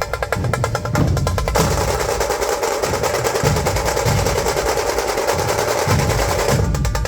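Dhol-tasha drumming: deep dhol beats under high tasha drums played in fast, even strokes. About a second and a half in, the tasha strokes merge into a continuous roll, and the separate strokes return near the end.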